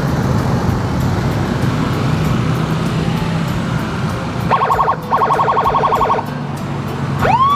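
Road traffic with a vehicle engine running steadily. About four and a half seconds in, an electronic siren gives a rapid pulsing yelp in two short bursts, and near the end it starts a wail that sweeps sharply up in pitch.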